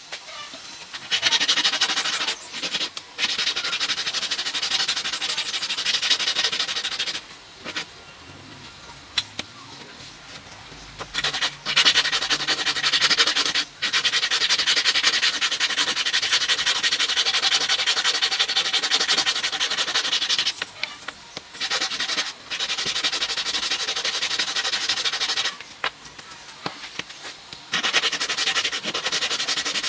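Sanding: a steady, abrasive scraping in long runs of several seconds, stopping and restarting abruptly with short breaks in between.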